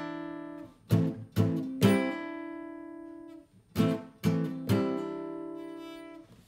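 Acoustic guitar strumming an A minor chord in 5th position: two short strums on the bass strings, cut off by releasing the fretting hand, then a strum on the higher strings with a pinky hammer-on to the G string's 7th fret that rings out and fades. The pattern plays twice.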